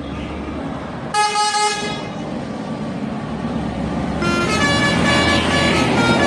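Indonesian bus telolet horn, a multi-tone musical air horn: a short held note about a second in, then from about four seconds several notes sounding together and growing louder. Under it runs the low rumble of the bus engine and traffic.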